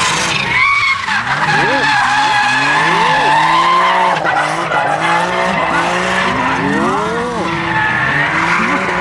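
Suzuki Alto kei car drifting: its tyres squeal steadily under a long slide while the small engine revs rise and fall again and again as the throttle is worked.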